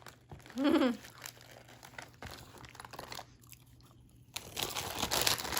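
A plastic chip bag crinkling and rustling, with chips crunching, building up from about four and a half seconds in. A short voiced murmur comes just before the one-second mark.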